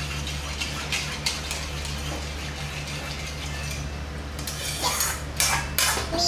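Metal ladle and spatula scraping and clinking against a wok as curry is stirred, with scattered scrapes and a few louder knocks near the end, over a steady low hum.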